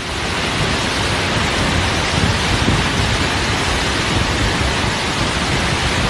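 Fast floodwater rushing along a roadside channel in a heavy rainstorm: a loud, steady rushing noise.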